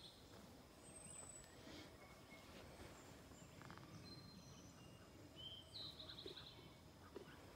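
Faint garden ambience with a songbird singing one short trilled phrase a little after the middle, and a thin high call about a second in.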